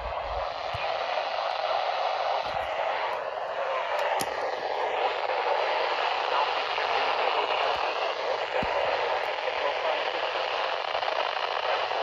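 Steady static hiss from a NOAA weather alert radio's speaker, an even rushing noise with no voice on the channel, broken only by a couple of faint clicks.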